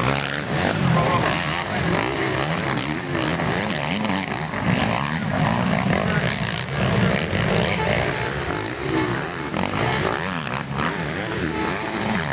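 Several motocross bikes revving hard as they race over the track, engine pitches rising and falling and overlapping.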